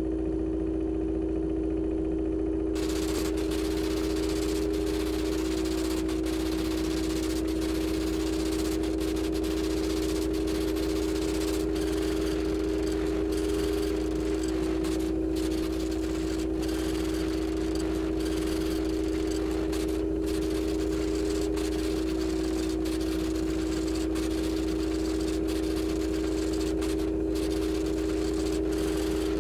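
Steady electronic tone made of two close low-middle pitches, over a constant deep hum and a hiss, unchanging throughout.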